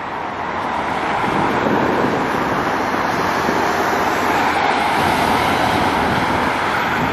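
Steady road-traffic noise of cars driving past close by, tyre and engine hiss that builds over the first couple of seconds and then holds.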